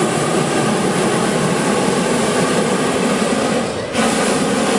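Hot-air balloon propane burner firing in a long blast, breaking off briefly near the end and firing again straight away.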